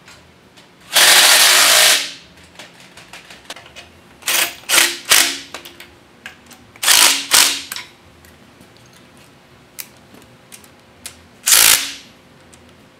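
Cordless impact wrench hammering bolts home on a steel transmission adapter plate in several bursts. The first burst lasts about a second, a cluster of short bursts and then a pair follow around the middle, and a last burst comes near the end, with light ticks between them.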